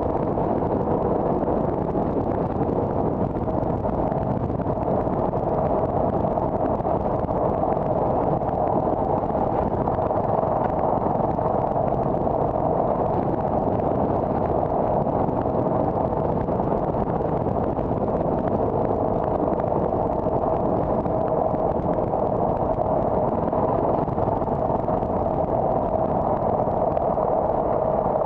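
Steady road and engine noise of a car being driven at an even pace, with a faint constant hum.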